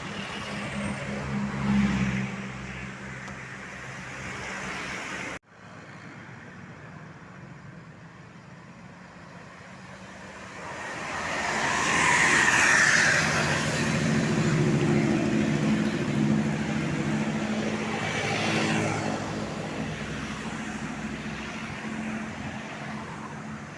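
Tour bus engine running, then after a cut a bus approaches and drives past. The engine and tyre noise swell to their loudest about twelve seconds in, then ease off as it moves away.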